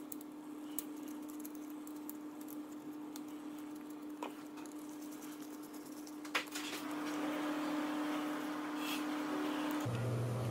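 Faint handling of a carbon-fibre drone frame while small screws are driven with a hand screwdriver: a few light clicks over a steady hum, which drops to a lower hum near the end.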